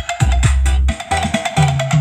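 Electronic dance music with a heavy, repeating bass beat, played loud through a sound-check rig of six 15-inch subwoofer cabinets.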